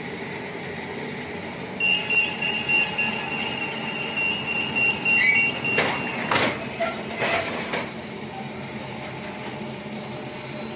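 Renfe Cercanías commuter train at a platform sounding its high door-closing warning beep for about four seconds, then several knocks as the doors shut, over the steady hum of the stopped train.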